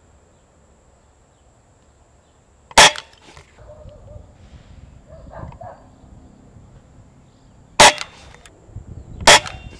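Rossi Sport 4.5 mm break-barrel air rifle firing pellets: a sharp crack about three seconds in and two more near the end, the last two about a second and a half apart. Faint clicks and rustles come between the shots.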